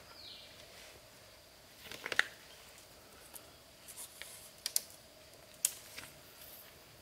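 Split bamboo strips clicking and knocking against each other as they are handled and bent into a frame, a few sharp clicks standing out about two seconds in and again later.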